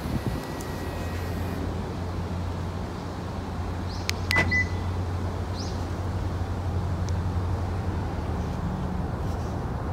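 A vehicle running with a steady low rumble. About four seconds in there are a couple of sharp clicks and a short electronic beep.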